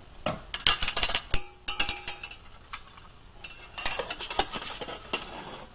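Stainless steel pot lid clinking and scraping against the rim of a steel pot as it is handled and set on, in a string of sharp clicks. A short metallic ring follows a clink about two seconds in.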